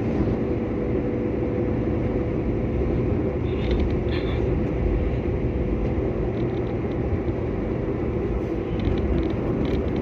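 Steady road and engine noise inside a moving car's cabin, a dense low rumble.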